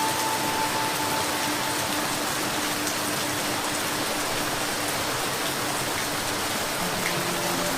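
Steady, even rainfall, a continuous hiss of many drops. Faint held tones sound under it for the first couple of seconds and again near the end.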